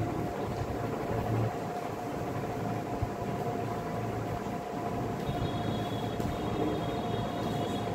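Steady background noise with a constant low hum, like a running fan or distant machinery. A faint high whine joins in during the last few seconds.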